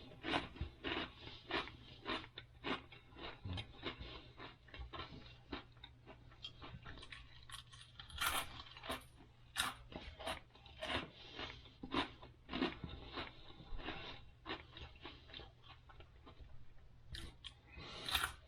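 A person chewing a mouthful of Cheerios cereal, with irregular crunches.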